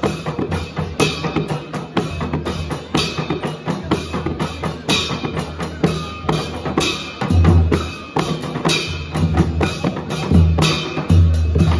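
Two Newar dhime drums, two-headed barrel drums, played together in a fast, driving rhythm. Deep booming strokes on the bass head are mixed with sharp, bright strokes, and the booms are heaviest in the second half.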